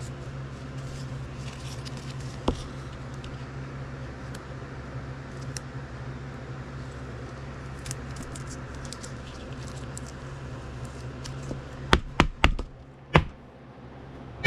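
Gloved hands handling a trading card and a clear plastic card holder: light rubbing and faint ticks over a steady low hum, then four sharp plastic clicks about twelve to thirteen seconds in as the holder is pressed shut.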